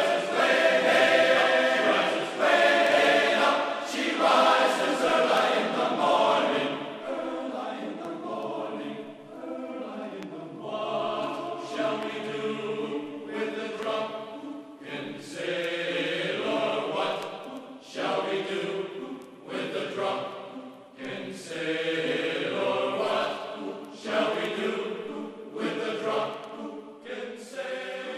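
Background music with sustained, choir-like voices, louder for the first six seconds or so and softer afterwards, fading out at the very end.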